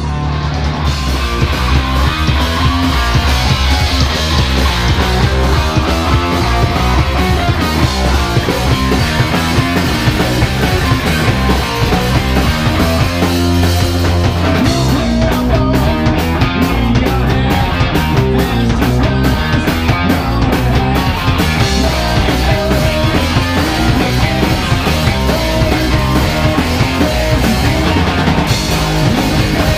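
Live punk rock band playing loud: distorted electric guitar, bass guitar and drum kit, with a choppy, stop-start stretch in the middle.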